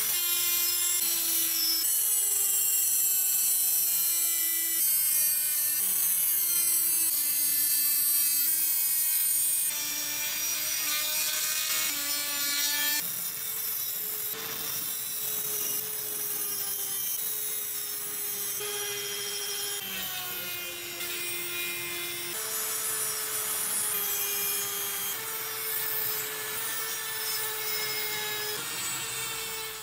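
Flex-shaft rotary tool spinning a small abrasive disc as it cuts crosshatch grooves into a steel hammer head: a motor whine that steps up and down in pitch every second or so, over a gritty grinding hiss. It cuts off sharply at the end.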